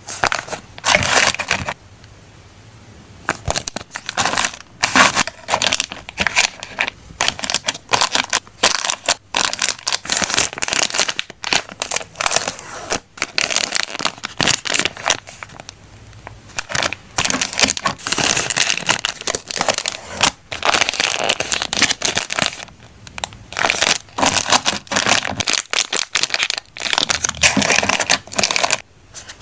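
Close-up crinkling and crackling of packaging handled by hand, in dense irregular bursts with small clicks, pausing briefly about two seconds in.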